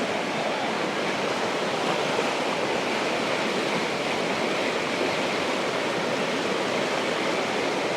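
Steady rushing of a stream of flowing water, an even splashing noise.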